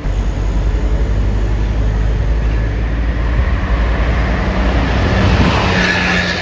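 Diesel engine of a large bus passing close by, a deep rumbling throb that comes in abruptly and grows noisier toward the end.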